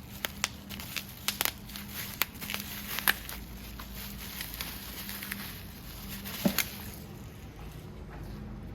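Packaging being handled: a string of sharp clicks and light crinkling of plastic and tape as a wheel center cap and its small bag of bolts are unpacked, busiest in the first few seconds with a louder pair of clicks near the end.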